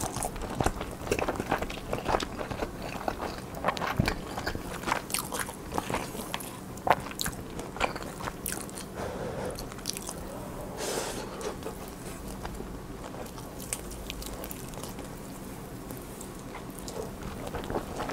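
Close-miked chewing of a mouthful of food, with wet smacks and sharp mouth clicks; busiest in the first half, sparser a little past the middle, picking up again near the end.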